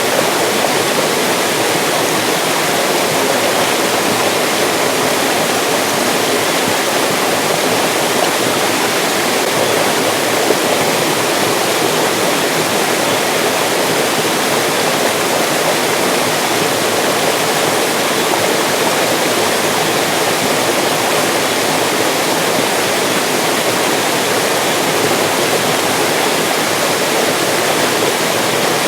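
Mountain stream rushing and splashing over rocks: a steady, loud wash of water noise.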